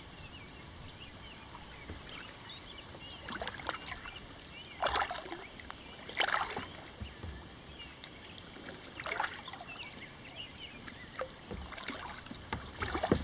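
Kayak paddle strokes in calm river water: the blade dips and splashes at irregular intervals a second or more apart, with dripping between strokes.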